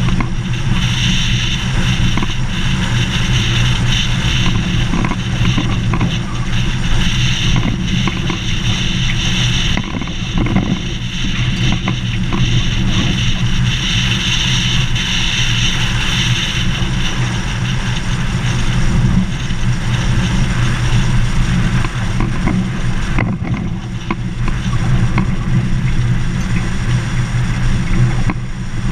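Vehicle driving on a gravel dirt road: a steady low drone of engine and tyres on gravel, with a hiss over it that swells and fades.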